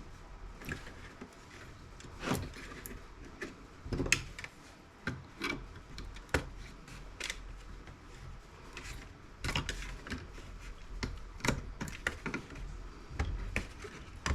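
Irregular clicks and light knocks of a laptop's plastic and metal parts being handled during disassembly, with the sharpest knocks about four and six seconds in.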